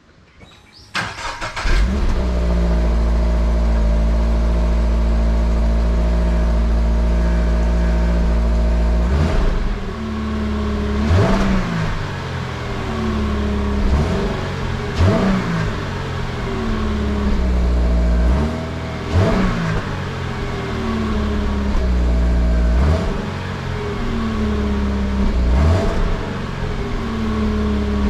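Toyota GR86's 2.4-litre flat-four starting up about a second in and settling into a steady idle through the exhaust. From about nine seconds in it is given a series of short throttle blips, each rev rising and dropping back to idle, every few seconds.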